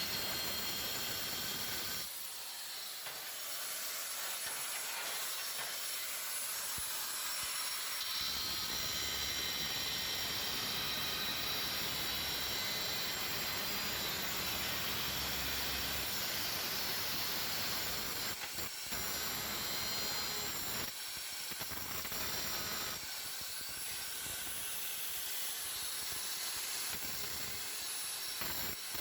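Power cutter running steadily through ceramic tile, a continuous hissing grind with brief dips about two-thirds of the way in.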